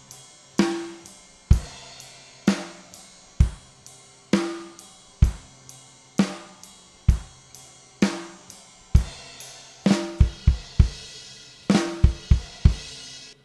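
Recorded multitrack drum kit played back through an Allen & Heath Qu-16 digital mixer, its toms noise-gated: kick and snare alternate about once a second under hi-hat and cymbals, with a quick tom fill near the end before the playback stops suddenly.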